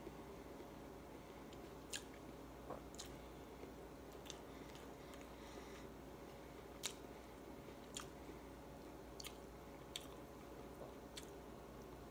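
A person eating by hand, chewing with short, sharp, wet mouth clicks and smacks about once a second, over a faint steady hum.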